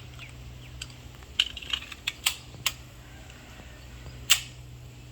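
A series of about seven sharp clicks or cracks at irregular intervals, the loudest about four seconds in, over a steady low hum.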